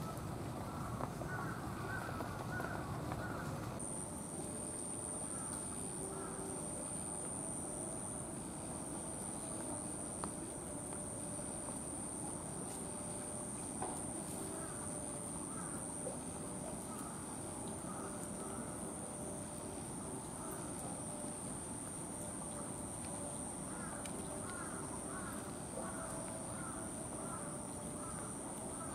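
Outdoor background with a steady high-pitched tone and a bird calling in short repeated notes, most often a few seconds before the end.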